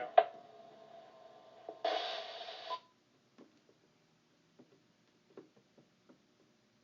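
Two-metre repeater audio from a ham radio receiver as the transmitting station unkeys: a sharp click, a faint steady tone, then about a second of squelch-tail hiss as the carrier drops, ending in a brief beep. After that, near silence with a few faint ticks while the frequency stays open for late check-ins.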